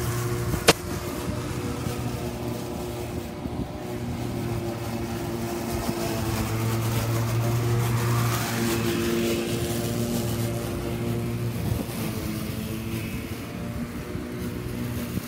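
Makita DLM431 36V cordless lawn mower running steadily while mowing grass: an even motor hum that holds its pitch, with one sharp click about a second in.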